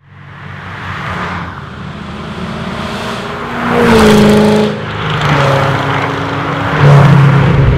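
Geiger-tuned Chevrolet Corvette C6 Z06's 7.0-litre V8 running loudly through its exhaust, getting louder over the first few seconds with the engine note rising and falling under throttle. It is loudest about halfway through, dips briefly, then jumps up again near the end.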